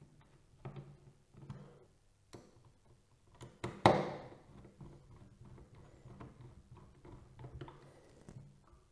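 Small screws being turned by hand with a screwdriver into a metal CPU cooler mounting bracket on a motherboard: light clicks and scrapes of the tip in the screw heads, with one sharp knock about four seconds in.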